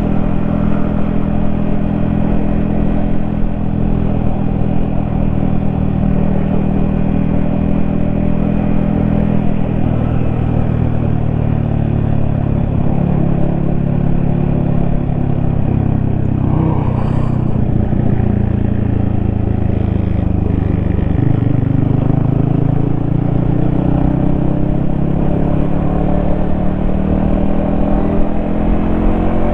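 Yamaha XSR155's 155 cc single-cylinder engine running under way, heard from the rider's helmet. It holds a steady pitch at first and drops off about two-thirds of the way through. It then rises steadily as the bike accelerates toward the end, with one brief sharp noise about halfway through.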